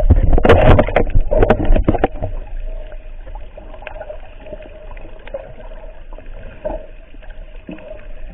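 Muffled underwater sound picked up by a camera in its waterproof housing. Loud splashing and knocks fill the first two seconds, then it settles to a steady muffled water rumble with a faint hum and scattered clicks.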